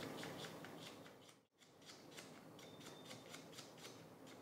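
Knife slicing thinly through a red onion: faint, quick crisp cuts, about four or five a second.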